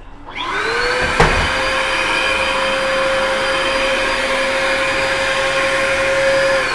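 A household vacuum cleaner is switched on: its motor spins up with a rising whine, and there is a sharp click about a second in. It runs steadily, then is switched off near the end, the whine falling as the motor winds down.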